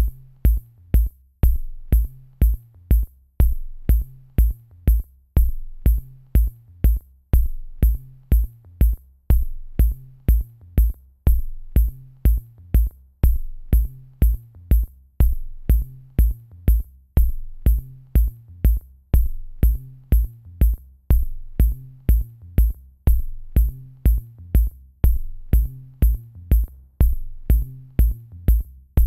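Electronic background music with a steady drum-machine beat, about two beats a second, over a repeating low bass line.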